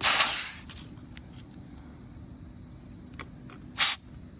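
Compressed air hissing in a short burst of about half a second from the Rivian R1T's air compressor hose. A few faint clicks follow, and a second, shorter hiss comes near the end.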